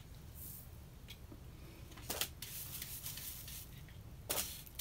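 Hand brush sweeping sand off a cast-iron sad iron and its welded steel spring: soft scratchy strokes, with two louder sweeps about two seconds in and near the end.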